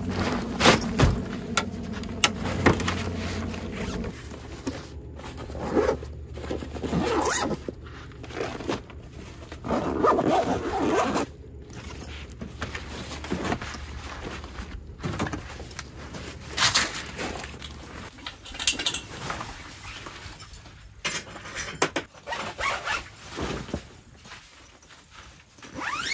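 Zippers being pulled and nylon carry bags handled, with rustling, scraping and bumps. A steady low hum stops about four seconds in.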